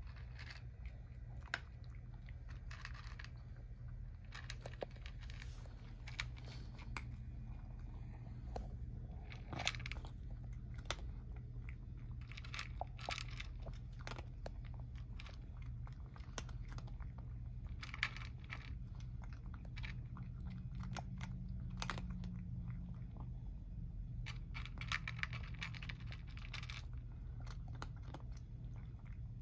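A tabby cat crunching dry kibble from a bowl: sharp crunches and chewing in irregular clusters, over a low steady hum.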